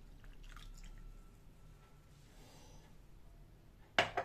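Faint trickle of wine being poured from a small glass into a bowl of flour, with soft kitchen handling, then a single sharp knock near the end.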